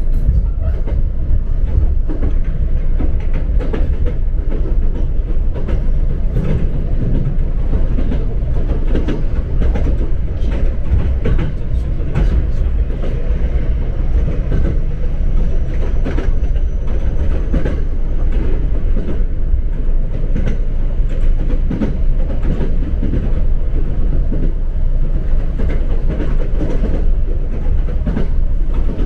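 Electric commuter train running along the line, heard from inside the passenger car: a steady low rumble with wheels clicking over rail joints, and a faint high whine a little past the middle.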